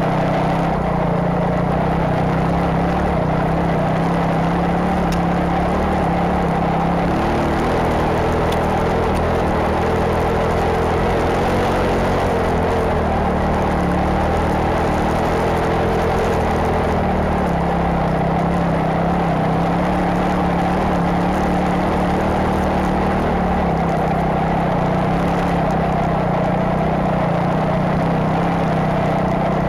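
Enduro motorcycle converted to a snowbike with an Impersled 3000 Pro track kit, its engine running steadily under load while the track churns through snow; the engine note wavers slightly now and then.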